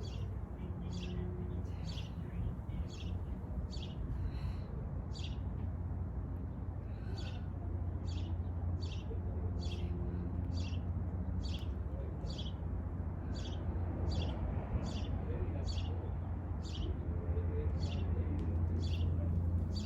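A bird repeating a short, high chirp over and over, about one and a half calls a second, over a steady low hum.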